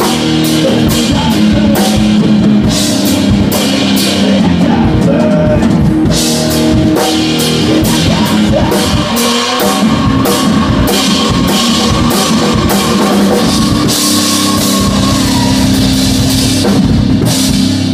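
A rock band rehearsing live: a drum kit with frequent cymbal crashes under a loud electric guitar, with the guitar holding long sustained notes in the last few seconds.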